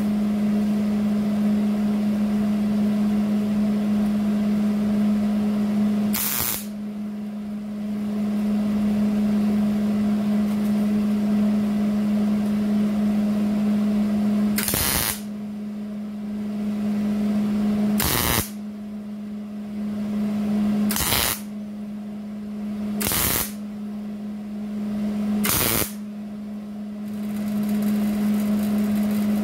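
Six short crackling bursts of a MIG welder laying tack welds, a few seconds apart and mostly in the second half, tacking a sheet-metal patch panel onto a rusted Jeep body. A steady low hum runs underneath.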